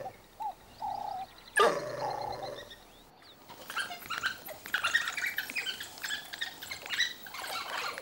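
African wild dogs calling: short pitched calls and one loud yelp falling in pitch, then, from about three seconds in, a rapid chatter of many high-pitched squeaks.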